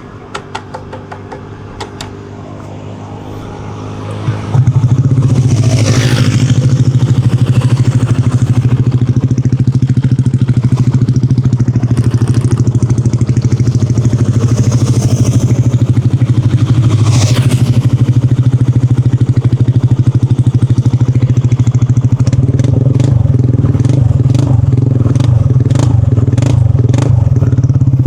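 Yamaha NMAX 155 scooter's single-cylinder engine running through a Yoshimura RS2 aftermarket exhaust, quiet at first. About four seconds in it turns much louder as the throttle opens, then holds a loud, steady, deep exhaust note.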